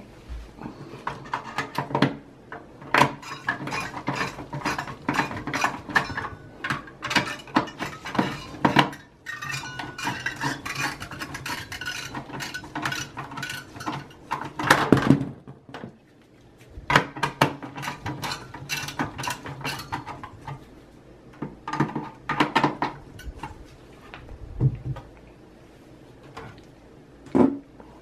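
Screwdriver working the metal screws of a CPU heatsink inside a desktop PC case: clusters of quick metallic clicks and scrapes. They pause about halfway, then come again in shorter runs, with a dull knock and a sharp click near the end.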